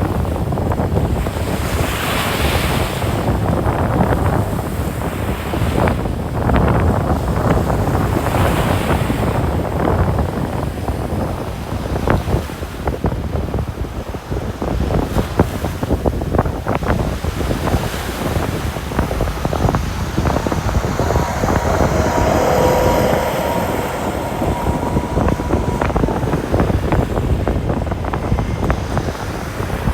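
Ocean surf breaking and washing on a sandy beach, with wind buffeting the microphone. The waves surge a few times, and a faint steady tone sits under them for a few seconds past the middle.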